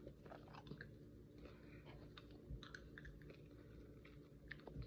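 Faint chewing of a sticky, chewy candy, with small scattered wet mouth clicks.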